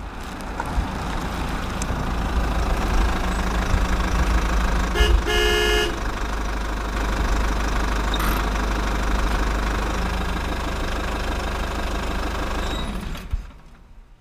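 Road traffic: a motor vehicle running steadily with a deep rumble. About five seconds in, a vehicle horn toots briefly in a few short pulses.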